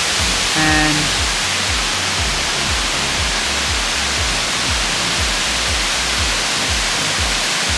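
Kuang Si Waterfall's cascades giving a steady, loud rushing hiss of falling water. Background music with a repeating bass line plays underneath, and a short pitched note sounds about a second in.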